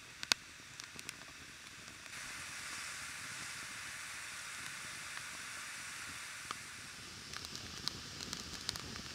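Tangerine-wood fire crackling with sharp pops, and a steady hissing, boiling sound that sets in about two seconds in and eases off around seven seconds, when the crackling picks up again.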